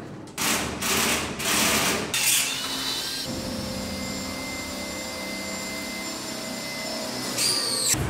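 Scraping and knocking for the first two seconds, then a steady electric motor whir with a high whine for about four seconds, ending in a short squeak near the end.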